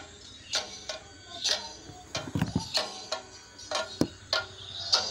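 Chenda drums struck with sticks in a slow, uneven beat of sharp cracking strokes, about one or two a second, with a few deeper booming beats in the middle.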